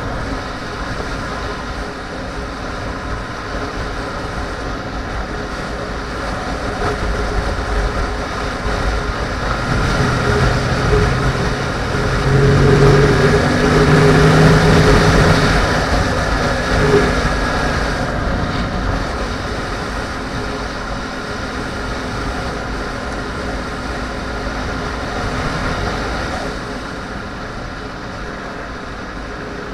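Wind rushing over the microphone of a moving sportbike, with the 2010 Yamaha R1's inline-four engine running underneath. It grows louder for several seconds in the middle, then settles back to a steady rush.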